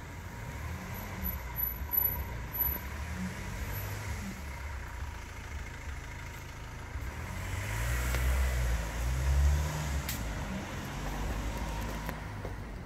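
Road traffic: a motor vehicle's engine runs with a low rumble that grows louder as it passes, about halfway through, then eases off.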